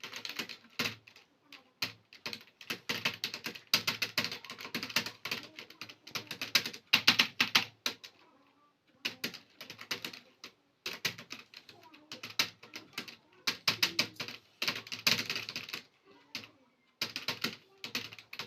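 Fast typing on a computer keyboard: rapid key clicks in runs of several seconds, broken by short pauses about eight seconds in and again near sixteen seconds.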